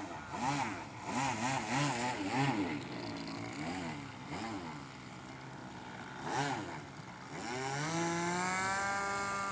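Model airplane engine of a radio-controlled Cessna 210 in flight. Its pitch swings up and down repeatedly, then climbs about three-quarters of the way through and holds steady at a high whine.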